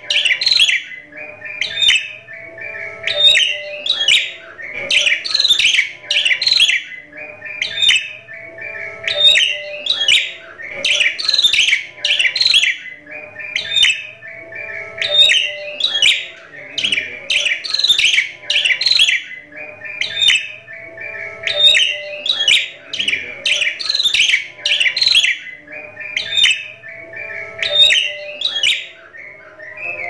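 Javan myna singing a continuous, rapid chattering song of sharp, squeaky notes, with a strong phrase about every one to two seconds. The song is full of mimicked calls worked into it.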